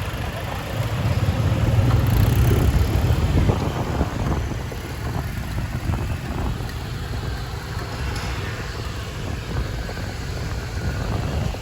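Motorbike running along a city street while carrying a passenger, with wind rumbling on the microphone, loudest about one to three and a half seconds in.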